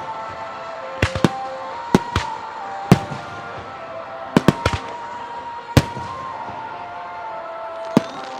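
Fireworks shells bursting in a display: about ten sharp bangs at uneven intervals, several in quick pairs, over music with long held notes.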